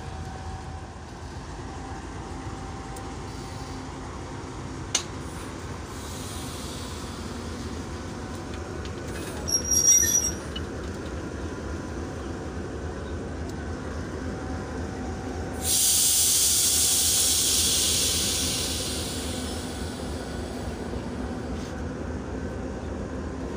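Diesel locomotive engine running with a steady low drone during coupling to passenger coaches. About ten seconds in comes a brief high metallic squeal. About sixteen seconds in a loud hiss of released compressed air starts suddenly and fades away over a few seconds.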